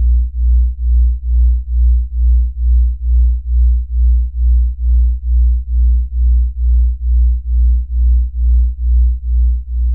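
Low electronic hum pulsing evenly at about three beats a second, with faint higher overtones: a star's signal made audible as sound.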